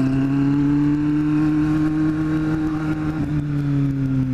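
Kawasaki Z750's inline-four engine running under way at a moderate, steady speed, its pitch rising slightly and then easing off as the throttle is held and rolled back.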